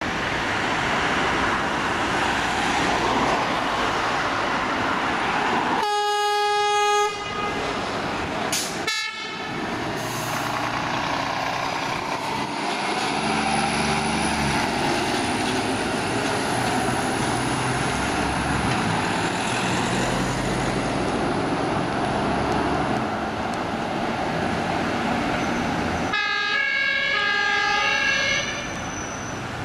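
Scania fire engine sounding its compressed-air horn, one long blast about six seconds in and a short toot near nine seconds, as a greeting. Its diesel engine is then heard driving past, and a two-tone emergency siren sounds near the end over steady traffic noise.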